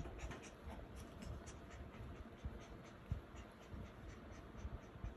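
Faint, irregular scratching and rustling of puppies moving about on towels and blankets.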